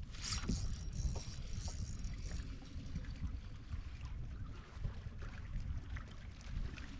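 Water lapping against a kayak hull, with wind rumbling on the microphone and a short burst of noise just after the start.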